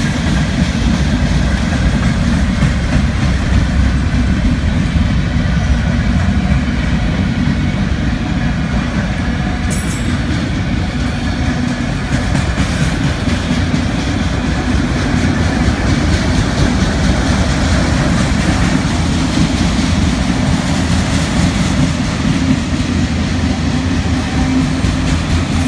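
Freight train cars, autoracks among them, passing close by at speed: a loud, steady rumble of steel wheels running on the rails.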